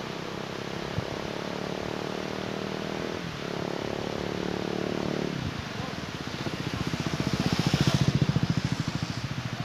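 Motor vehicle engines running close by. A steady engine note drops in pitch twice in the first half, then an engine with a fast pulsing beat passes, growing loudest about eight seconds in and fading away. A steady rushing noise runs underneath.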